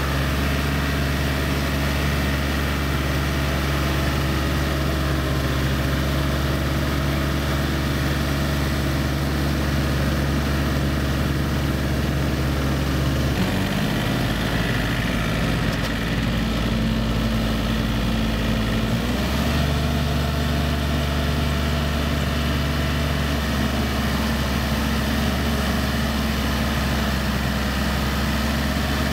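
Yanmar EF393T tractor's diesel engine running steadily while it drives a rotary tiller through a flooded rice paddy. Its note shifts for several seconds in the middle, then settles back.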